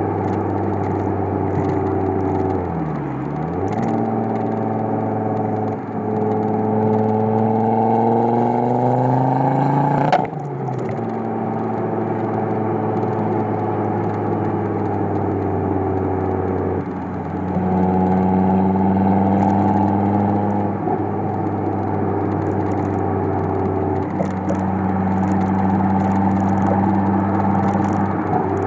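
Exhaust of a Stage 1 tuned Ford Focus RS under way, with road and wind noise. The engine note climbs steadily as the car accelerates through a gear, then drops with a sharp crack about ten seconds in at the gear change, and the car runs on with a steadier note that swells and eases a little.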